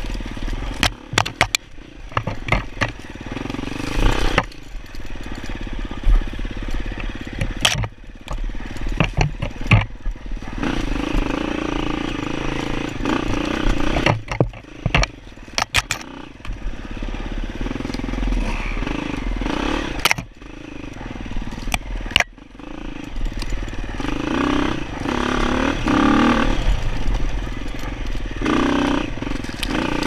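Off-road dirt bike engine revving up and down as it works along a tight, rough trail, with many sharp knocks and clattering rattles from the bike hitting bumps and brush.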